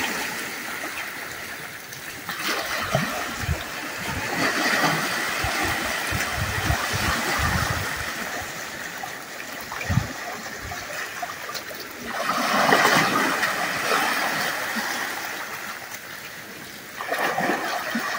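Water splashing and washing, in irregular surges a few seconds apart, like small waves.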